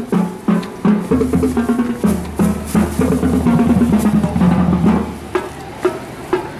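Marching band drum line playing a street cadence: rapid snare strokes over pitched tenor and bass drum notes, with a low sustained drum rumble through the middle.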